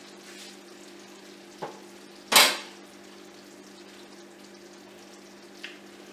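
Faint sizzle from a wok of stir-fried chop suey with the burner just turned off, over a steady low hum. About two seconds in comes a single short, loud burst of noise, with a couple of soft clicks around it.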